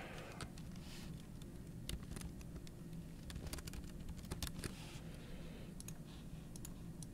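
Faint computer keyboard typing: irregular key clicks scattered throughout as coordinate values are typed in, over a low steady hum.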